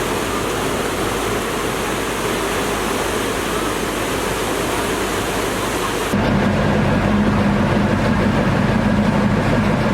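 Steady rushing of fast-flowing floodwater. About six seconds in it gives way abruptly to a heavy vehicle engine running with a steady low drone.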